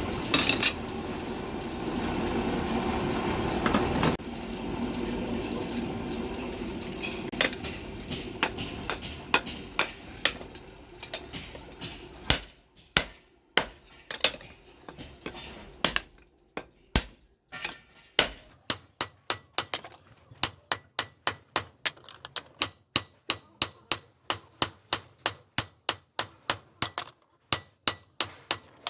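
Hammer blows ringing on steel during the forging of a machete blade. A steady noise lies under scattered strikes at first. From about two-thirds of the way in, the blows come clean and regular, about two to three a second.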